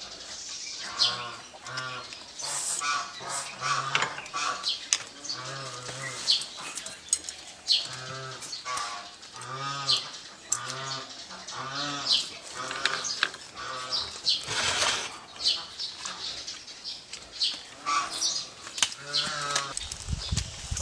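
Farm poultry calling over and over, about one short nasal call a second, with sharp high chirps and clicks between the calls. A few low bumps come at the very end.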